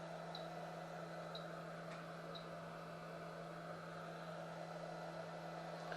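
Faint steady electrical hum with an even hiss, and three faint high ticks about a second apart in the first few seconds.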